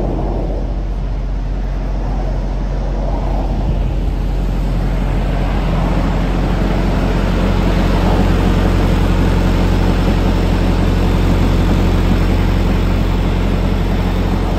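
A semi-truck's diesel engine idling with a steady low drone, mixed with highway traffic passing close by; the sound swells a little about halfway through.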